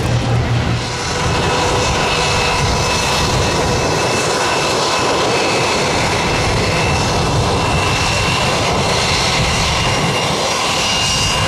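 Airbus A320 turbofan jet engines running at low thrust as the airliner taxis close by: a steady roar with a high whine whose pitch edges up slightly near the end.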